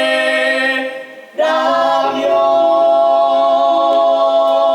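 Voices singing long held notes in a stage musical song. One sustained note ends about a second in, and after a brief breath a new note is held.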